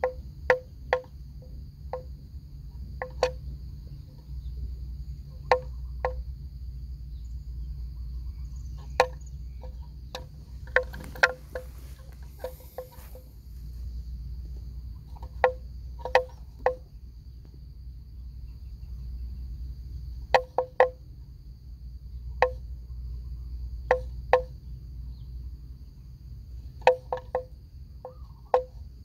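Wooden bell hanging from a grazing water buffalo's neck clonking irregularly, often two or three hollow knocks in quick succession as the animal moves its head. A steady high insect drone runs underneath.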